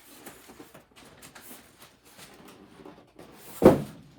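Packaging being handled and pulled off a new embroidery machine: light rustling and scraping, then one loud thump about three and a half seconds in.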